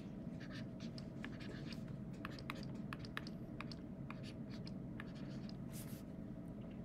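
Stylus writing on a tablet screen: a run of small, uneven taps and light scratches as an equation is handwritten, over a steady low hum.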